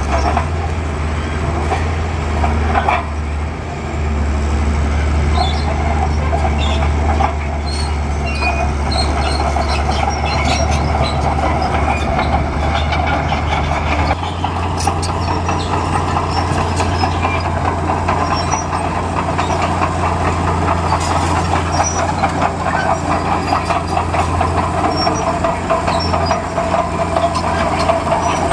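Bulldozer's diesel engine running steadily, with scattered metallic clanks and rattles from its steel crawler tracks. The engine note shifts about halfway through.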